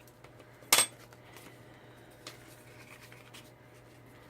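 Cardstock being folded and handled: one short, sharp paper crackle about a second in, then a few faint ticks of paper handling.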